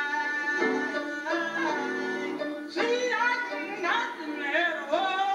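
A woman singing a gospel solo with piano accompaniment, her voice sliding between notes and holding them, on an old camcorder recording.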